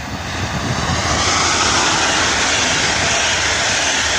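Passenger express hauled by a Siemens Vectron electric locomotive passing at speed close by. The rush of wheels on the rails grows over about the first second, then stays steady and loud as the coaches go by.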